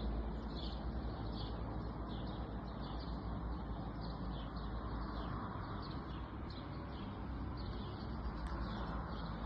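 Small birds chirping in short, repeated calls, about one or two a second, over a steady background hiss and low hum.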